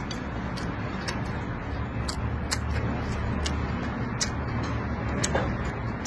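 Close-miked chewing: wet mouth and lip clicks come irregularly, a few each second, over a steady low hum.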